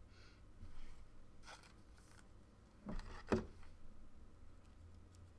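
Faint rustling and scraping from hands handling trading cards, with two sharper scrapes close together about three seconds in.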